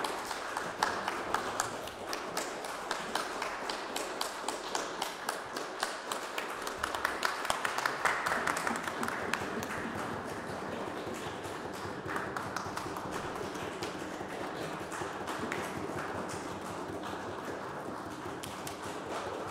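Audience applauding, many hands clapping without a break, with sharper single claps standing out in the first half and an evener patter later on.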